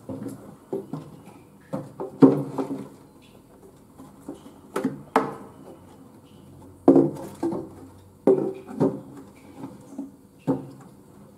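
Empty plastic drink bottles being moved about, giving irregular hollow knocks and clatters against each other and the glass of the tank.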